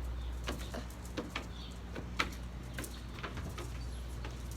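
A scattered series of sharp clicks and taps over a steady low hum, the loudest click a little past two seconds in.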